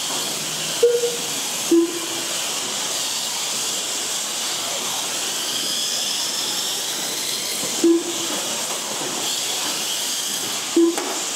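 Several Mini-Z electric RC cars racing: a steady high hiss of small motors and tyres on the track, with faint rising motor whines as cars accelerate. Four short electronic beeps at two pitches come through, the first about a second in and the last near the end.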